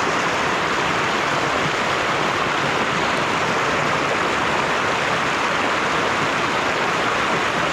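Steady, loud rush of flowing creek water.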